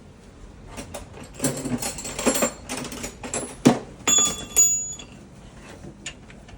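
Irregular metallic knocks and clatter of parts being handled during a dryer repair, with a couple of brief ringing clinks about four seconds in.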